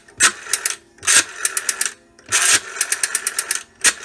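Brass rotary dial of a Northern Electric Bakelite desk telephone being dialled several times. Each digit is a short mechanical whirr as the dial is pulled round, then a quick run of clicks, about ten a second, as it springs back.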